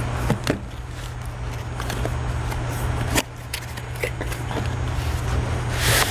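A cardboard tool box being handled and opened: sharp clicks and rustles of the flaps, then a longer scrape near the end as the fabric wrench roll slides out of the box. A steady low hum runs underneath.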